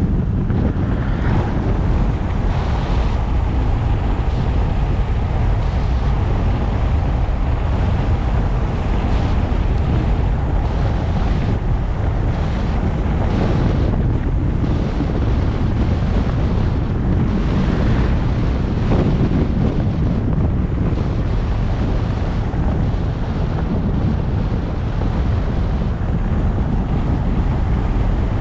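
Steady wind noise buffeting the microphone of a GoPro on a moving car, over a low, even rumble from the drive.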